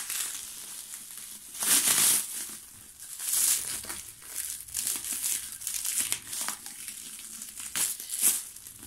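Clear plastic film wrapping crinkling and rustling as it is picked at and pulled away by hand, in irregular bursts, with louder crackles about two seconds in, around three and a half seconds, and twice near the end.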